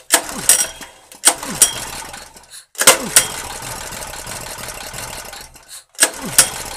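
Recoil starter of an Endress 2.5 kW petrol generator's small single-cylinder four-stroke engine pulled four times with the choke closed, the engine cranking over and spinning down each time without running; after the third pull the sound carries on for a couple of seconds before dying away. It is a hard-start after long storage, with the carburettor just refitted.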